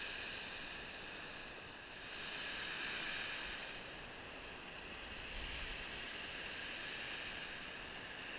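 Surf breaking and washing up a shingle beach, a steady wash of noise that swells and eases.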